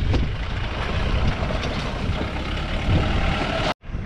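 Off-road 4x4's engine running under load on a rough climbing track, with short knocks and rattles from the vehicle over the steady noise. The sound cuts off abruptly near the end.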